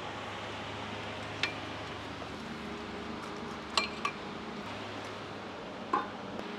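Hollow aluminium bike-stand tubes clinking as they are set upright against a concrete wall: four light knocks, the loudest a little under four seconds in, over a steady low hum.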